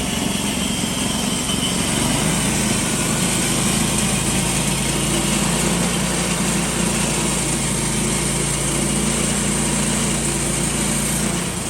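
Small gasoline engine of a Woodland Mills HM126 portable band sawmill running steadily under throttle, with the hiss of the band blade, cutting off near the end.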